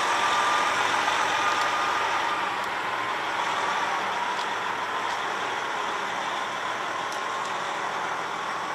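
Heavy tractor-trailer rolling slowly past: steady engine and tyre noise with a faint whine, easing off a little over the seconds.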